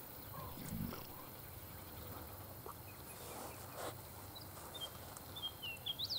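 Quiet outdoor ambience with a soft low thump or grunt about a second in, and a bird chirping repeatedly in short, high, gliding notes over the last two seconds.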